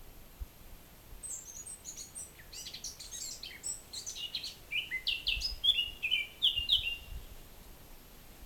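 A songbird singing one song of quick, high chirping notes that step down in pitch and grow louder toward the end, lasting about six seconds.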